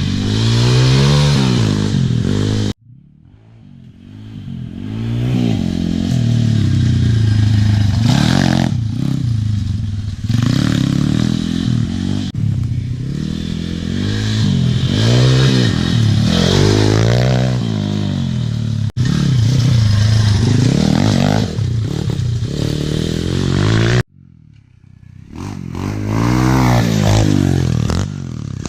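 Pit bike engines revving up and down as they are ridden, the pitch climbing and falling every second or two through the throttle and gear changes. The sound cuts off sharply twice, about three seconds in and near the end, then builds back up.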